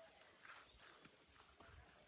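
Faint footsteps walking along a path, a few steps a second. Behind them runs a steady, high, rapidly pulsing insect trill.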